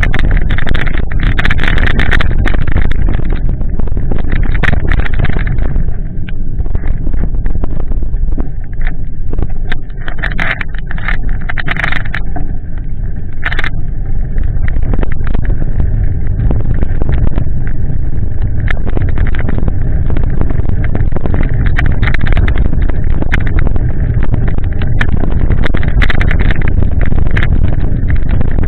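Loud, steady rumble from a bicycle-mounted camera riding a wet path in the rain, the shaking of its mount and the road vibration carried straight to the microphone, with scattered sharp clicks. The rumble eases for several seconds about six seconds in, then picks up again.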